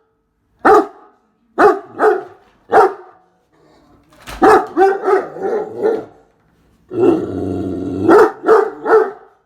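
A Great Dane barking in deep, loud single barks and short quick runs, about a dozen in all, with a longer, rougher growl-like sound of about a second near the end: the dog barking at a vacuum cleaner.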